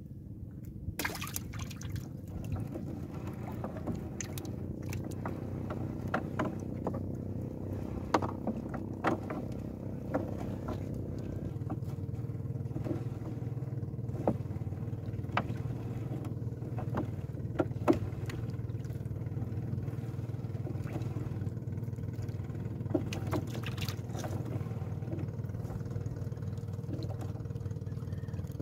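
A small boat engine running steadily at low speed, with scattered knocks and clatter as a fishing net is hauled in by hand over the wooden outrigger canoe.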